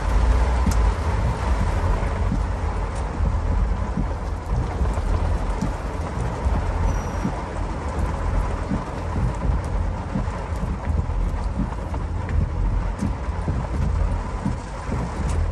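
Honda Civic heard from inside the cabin, rolling slowly: a steady low rumble of engine and tyres on wet pavement, with a few scattered light ticks.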